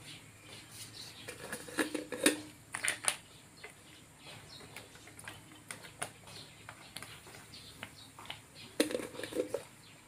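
Thick tomato-and-meat spaghetti sauce simmering in a nonstick wok, with irregular soft plops and clicks, and a wooden spatula stirring it. The clicks come louder in clusters about two seconds in and near the end.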